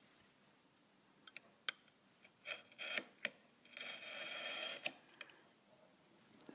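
Razor-blade glass scraper shaving the acetone-softened, rubbery coating off the edge of a SIP chip module: a few light clicks and taps, and a scrape of about a second near the middle.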